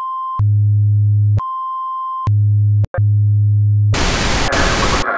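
Colour-bar test tone: a steady high beep alternating with a louder low buzz, twice each, with a brief glitch just before the last buzz. About a second before the end the tone gives way to a loud burst of TV static.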